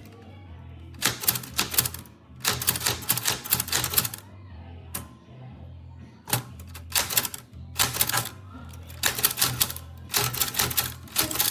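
Royal 79101T Classic manual typewriter being typed on: bursts of quick keystrokes with short pauses between them, plus one lone strike about five seconds in. Background music runs underneath.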